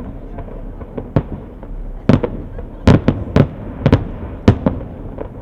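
Fireworks display: a rapid, irregular run of sharp shell bursts, about eight or nine bangs in five seconds, the loudest near the middle, over a steady background rumble and hiss.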